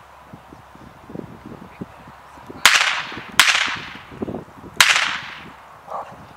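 Three gunshots, most likely from a blank-firing pistol, each a sharp crack with a trailing echo. The first two come close together and the third follows about a second and a half later.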